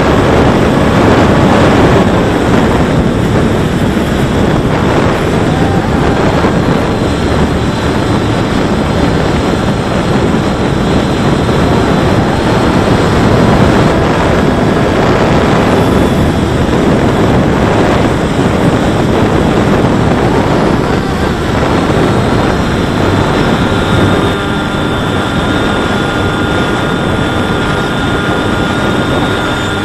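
Wind rushing over a Volantex Ranger 757-3 RC plane in flight, picked up by its onboard camera, with its brushless outrunner motor and propeller running. A faint steady whine comes in about three-quarters of the way through.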